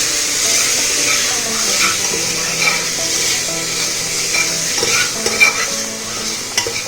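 Chopped tomatoes sizzling in hot oil with fried onion and spice masala in a pan, a steady frying hiss while being stirred, with small scrapes and taps of the utensil against the pan.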